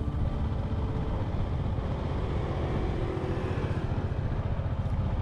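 Motorbike engine running steadily while riding, with a fast even pulsing under a haze of wind and road noise.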